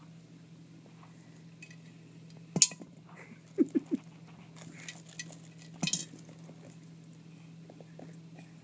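Coins dropped into a piggy bank, clinking twice: a sharp clink about two and a half seconds in and another near six seconds. Between the clinks come three short squeaky vocal sounds.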